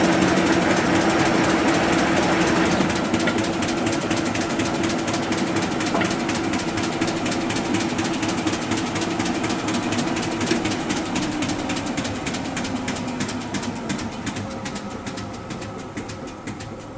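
Arter A3-12 rotary surface grinder running, with rapid, even clicking from the seam in its flat spindle drive belt going around. A steady hum fades out about two-thirds of the way through, and the whole sound grows quieter toward the end.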